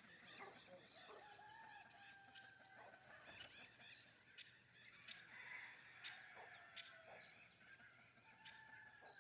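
Faint birdsong and bird calls, many short chirps and sharp notes overlapping with a few longer held calls.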